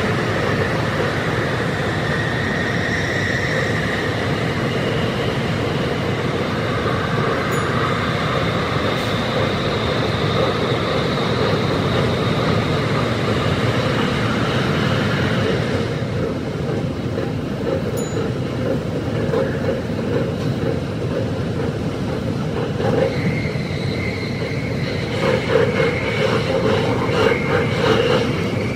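Tsukuba Express electric train running at speed, heard from the driver's cab and sped up to double speed. A steady, dense roar in the tunnel thins out about halfway through as the train comes out into the open, and a quick run of wheel clatter follows near the end.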